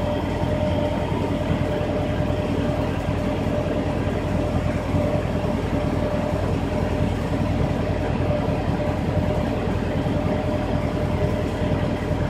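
An old carbureted car engine running together with a 1920 TUEC central vacuum, whose single impeller draws the engine's exhaust out through a hose. The two make a steady mechanical drone with a constant tone.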